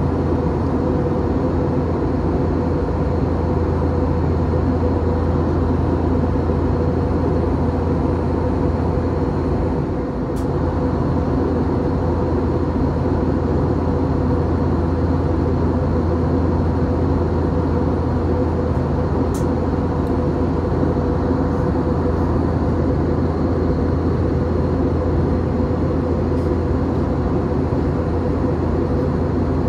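Steady in-flight cabin noise of an Airbus A321 airliner: a constant drone of engines and rushing airflow, with a strong low hum and a few steady tones over it. It dips slightly for a moment about ten seconds in.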